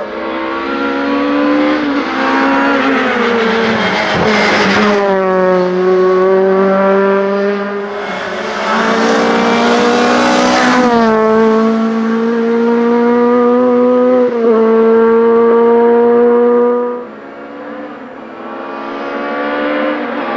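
VW Golf GTI 16V hillclimb race car's four-cylinder engine revving hard, its pitch climbing through each gear and dropping at several gear changes. About seventeen seconds in, the engine note falls away sharply, then builds again near the end.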